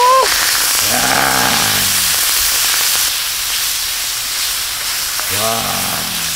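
Kimchi sizzling loudly on a hot pan as it is tossed with tongs, giving off a steady hiss of steam that eases a little about three seconds in.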